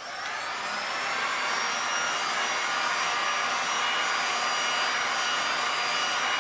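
Handheld heat gun running, its fan blowing a steady rush of air with a faint whine; it comes on at the start and builds to full over the first second.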